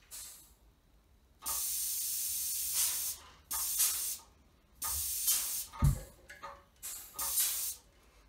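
Pneumatic balancer hissing air in about six separate bursts, the longest about a second and a half, as a 75 lb load of weight plates is raised and lowered with its hand control. A low thump about six seconds in is the loudest moment.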